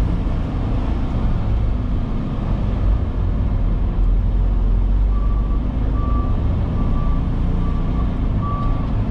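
Semi truck's diesel engine running as the truck rolls slowly, a steady low rumble heard from inside the cab. From about five seconds in, a back-up alarm beeps steadily at one pitch, about three beeps every two seconds.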